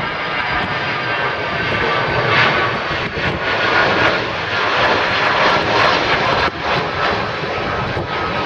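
Turbofan engines of a four-engined BAe 146-family regional jet at climb power as it climbs out after takeoff. A steady jet engine noise, with a faint whine in the first second or so.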